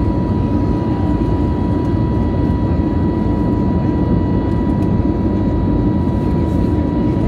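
Airbus A320neo cabin during the climb after takeoff: the jet engines' steady, even roar heard from inside the cabin, with a constant high tone running through it.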